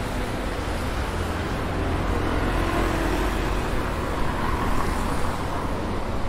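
Steady street traffic: cars running along a wet road, a constant low rumble with road hiss.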